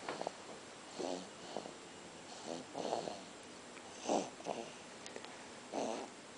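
Snoring: short breaths coming in pairs about every one and a half seconds.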